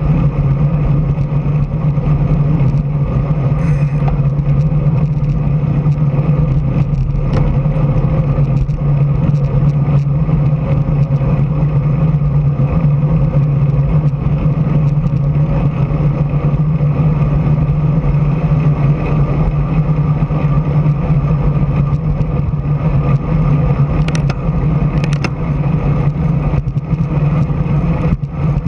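Steady wind rush and road noise on a bicycle-mounted camera's microphone while riding at speed, with a strong low rumble throughout. A couple of short clicks come near the end.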